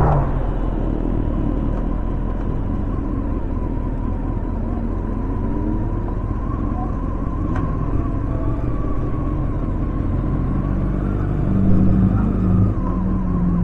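Honda CBR954RR's inline-four engine heard from the rider's seat, running at light throttle under steady wind and road noise. The engine note comes up again near the end as the throttle opens.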